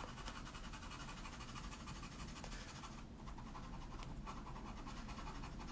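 Colored pencil shading on toned paper: a faint, continuous scratching of quick, short strokes as the pupil is worked darker.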